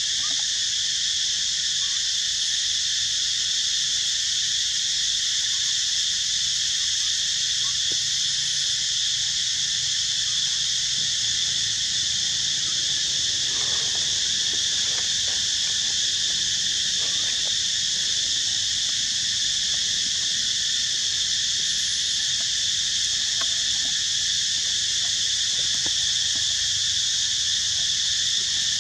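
Steady chorus of insects, a continuous high buzz at several pitches that holds level throughout.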